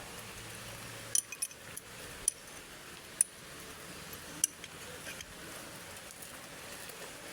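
Metal tools and steel parts clinking against each other as they are handled: about half a dozen sharp, ringing clinks, irregularly spaced.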